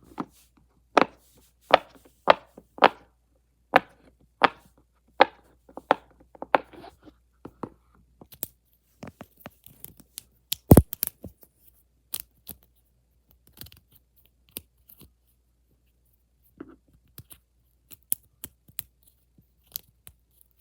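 Fidget toys being clicked and snapped by hand: a run of sharp clicks about every half second or so, then scattered lighter clicks with one loud knock about halfway through.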